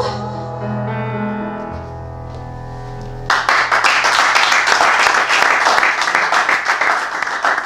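The song's backing music ends on held chords that fade, then about three seconds in, clapping from a small audience starts suddenly and keeps going.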